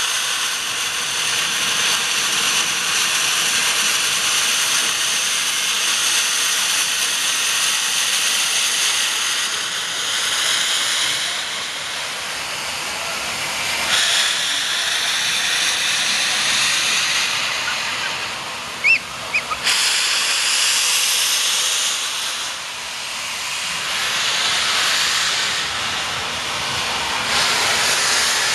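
Southern Pacific GS-4 4-8-4 steam locomotive No. 4449 blowing steam from its open cylinder cocks: a loud, steady hiss that swells and eases. A few short, sharp sounds stand out briefly about two-thirds of the way through.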